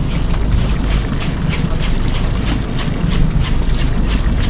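Wind buffeting the microphone aboard a small boat at sea, a steady low rumble, with a run of light ticks about three a second.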